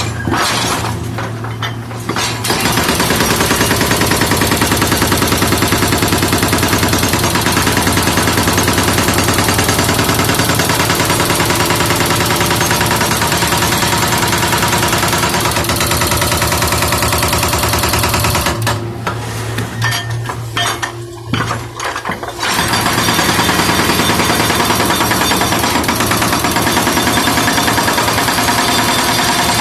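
A jackhammer hammering in a fast, continuous rapid-fire rattle, with a steady low engine hum underneath. It stops for a few seconds past the middle, then starts hammering again.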